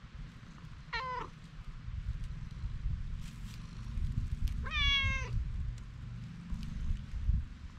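Orange-and-white cat meowing twice, a short meow about a second in and a longer one near the middle, each falling in pitch at the end, over a steady low rumble.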